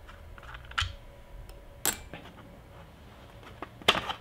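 Plastic clicks and light knocks from a snowmobile handguard and its signal-light cap being handled: a few separate sharp clicks, one about a second in, another just before two seconds, and the loudest near the end.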